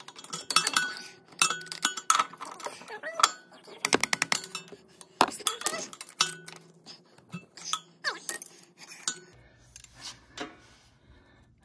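Irregular run of sharp metallic clicks and clinks from pliers and a spring hose clamp being handled on the tractor's hydraulic hose fittings.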